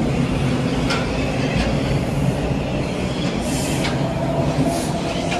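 TTC Bloor–Danforth line subway train pulling into the station alongside the platform, a steady rumble of wheels on rail.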